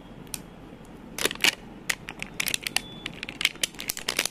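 Clear plastic wrapper crinkling and crackling as it is peeled and crumpled off an L.O.L. Surprise ball, a quick run of sharp crackles starting about a second in.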